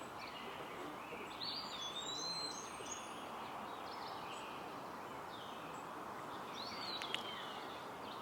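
Outdoor ambience: a steady background hiss with birds chirping, a run of short calls about one and a half seconds in and another call about seven seconds in, with a small click near the second call.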